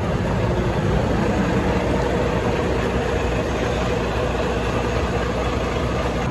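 Semi truck's diesel engine idling with a steady low rumble.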